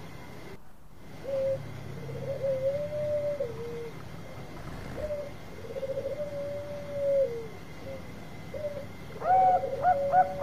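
Zebra dove (Bangkok perkutut) cooing: two long coos, each opening with a rapid trill, then near the end a louder run of short, clipped notes at about five a second.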